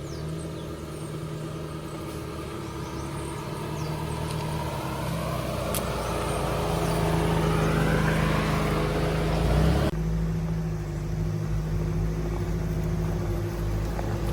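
A 4x4 vehicle's engine running steadily while driving along a rough track, with road and tyre noise swelling over several seconds. The sound changes abruptly about ten seconds in, then the engine runs on steadily.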